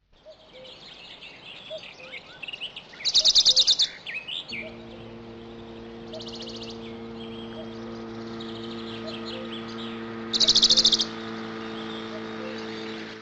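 Birds chirping and calling, with a loud, fast trill about three seconds in and again about ten seconds in. A steady low hum comes in about four and a half seconds in.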